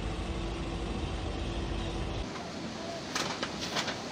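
Steady low rumble with a faint hum that cuts off a little over two seconds in. Then a few sharp crackles and pops from a wildfire burning trees and brush.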